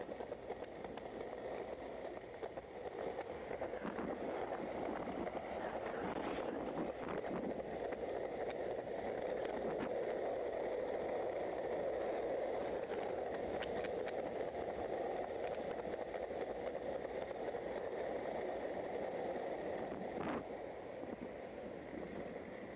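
Skateboard wheels rolling over pavement in a steady rumble, with scattered clicks and knocks as the board crosses cracks and joints, one sharper knock near the end.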